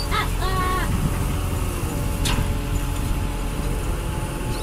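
A fishing boat's engine runs steadily with a low rumble, and gulls cry briefly near the start.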